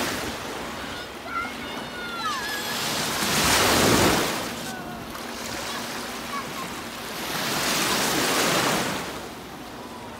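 Choppy lake waves washing and breaking in the shallows, swelling into two louder surges about three and a half and eight seconds in. Faint high calls sound in the background near the start.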